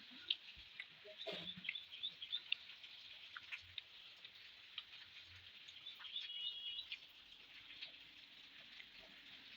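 Soft, wet mouth clicks and smacks of someone eating rice and fish curry, coming in quick irregular runs, with a short bird-like chirp about six seconds in.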